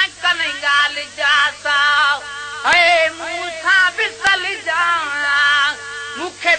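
A male voice singing a Sindhi devotional naat with ornamented, wavering melodic lines. There are two sharp clicks, near the middle and about two-thirds of the way in.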